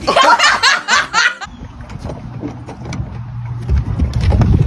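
A person laughing in quick repeated bursts for about a second and a half, then a low, steady rumble with some light knocks.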